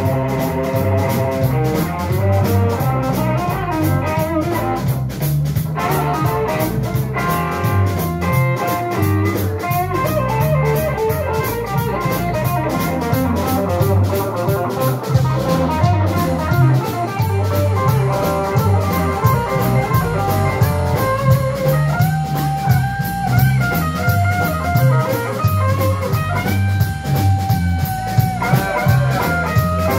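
Live blues played by an electric guitar, bass guitar and drum kit, the guitar playing lead lines over a steady drum beat. In the last several seconds the guitar holds long notes and bends them.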